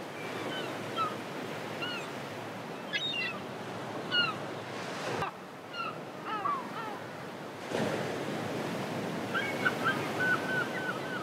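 Small birds chirping over a steady rush of wind and water, with a quick run of repeated chirps near the end.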